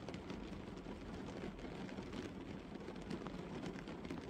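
Light rain pattering on a parked car, heard from inside the cabin: a steady patter with many scattered single drops ticking on the roof and windshield.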